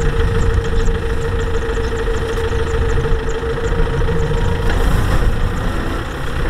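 Farm tractor's diesel engine running steadily while hauling a loaded trailer bogged in mud, with a steady whine that fades out about three-quarters of the way through.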